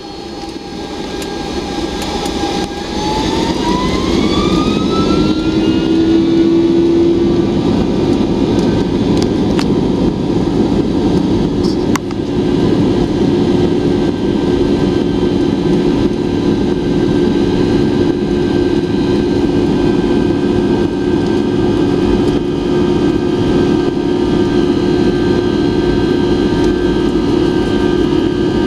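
An airliner's jet engines spooling up for takeoff, heard from inside the cabin: a whine rises in pitch over the first few seconds as the noise grows louder, then the engines hold steady at high power over a low rumble.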